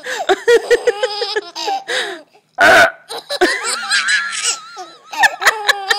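A baby laughing in repeated bursts of high-pitched giggles and squeals. About three seconds in comes one short, loud burst that fits an adult's fake burp.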